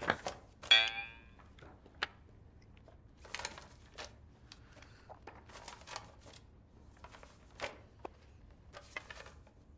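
Paper rustling and light taps as printed script booklets are handled and opened, coming in scattered short bursts. Near the start there is one brief, loud pitched sound.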